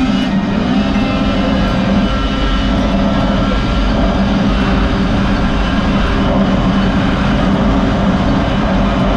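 Arctic Cat snowmobile engine running at a steady cruise along the trail, heard from the rider's seat, its note holding level under a rushing noise.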